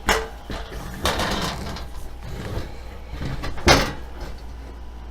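Handling noises while sheet metal is marked out on a workbench: a sharp knock, a short scraping noise about a second in, and a louder clack near the end.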